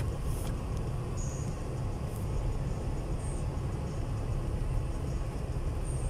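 Steady low rumble of a car driving on a snow-covered road, engine and tyre noise heard from inside the cabin.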